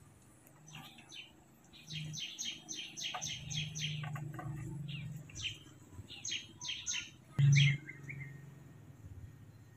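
Birds chirping in quick, repeated high notes, in bursts. A brief low thud about seven and a half seconds in is the loudest moment.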